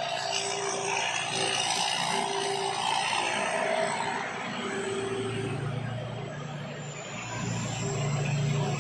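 Combine harvester running steadily, its engine hum mixed with a broad mechanical noise and an on-and-off tone.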